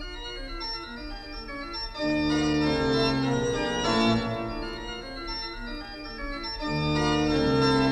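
Background film score of slow, sustained chords that swell louder about two seconds in and again near the end.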